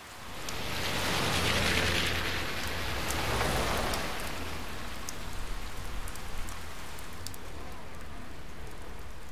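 Rain falling: a steady hiss, fuller in the first few seconds, with scattered drips ticking around the middle.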